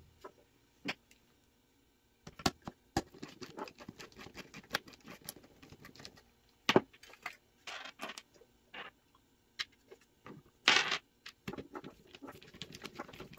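A screwdriver clicking and scraping on a Lucas A115 alternator's plastic rear cover and metal case as its screws and noise suppression capacitor are taken off. Scattered clicks and taps, with a longer scrape near the end.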